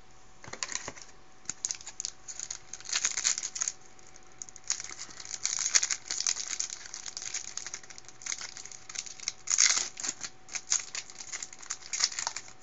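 Foil trading-card pack wrapper crinkling and tearing as the pack is opened, with loose wrappers and cards rustling: irregular crackles and rustles in clusters, loudest about six and ten seconds in.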